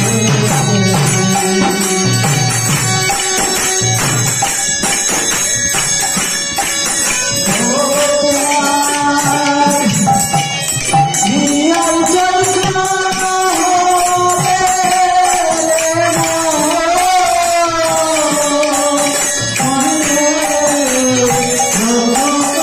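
Bengali devotional kirtan: a man singing to a khol drum and jingling hand percussion that keep a steady rhythm. The singing line stands out more from about eight seconds in.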